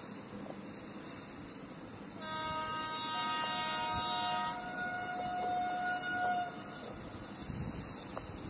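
Indian Railways locomotive horn sounding one long blast of about four seconds, starting about two seconds in, with a second, lower note joining about a second later and holding until the horn stops.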